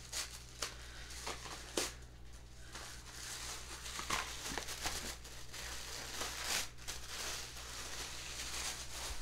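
Paper wrapping crinkling and rustling as a tied-up package is untied and unwrapped by hand, with a few light clicks and taps; the rustling gets busier about three seconds in.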